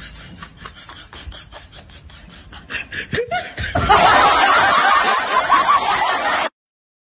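Laughter: a quick run of snickering, then loud, hearty laughter from about four seconds in that cuts off suddenly a little after six seconds.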